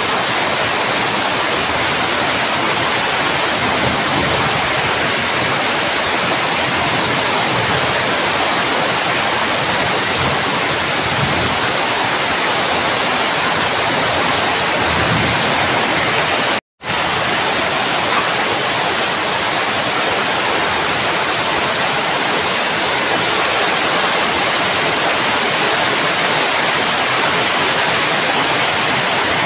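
Heavy rain on a corrugated roof, a loud, steady, dense hiss. The sound cuts out for an instant about 17 seconds in.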